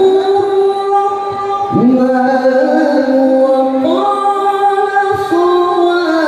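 A man reciting the Quran in the melodic qori style into a microphone. He holds long ornamented notes, with a slide in pitch about two seconds in and steps up to higher notes near the middle and later on.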